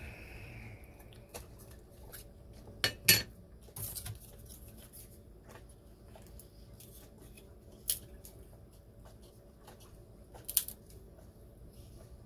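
A small metal tin of epoxy resin handled and opened, with a few sharp metallic clinks, the loudest about three seconds in. Then a wooden craft stick scrapes and scoops the thick resin inside the tin, with an occasional click against the rim.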